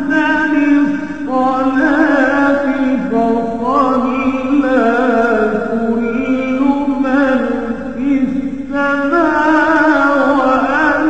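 A male voice singing an Arabic Islamic nasheed in praise of the Prophet, slow and heavily ornamented, with wavering melismas over a steady low drone.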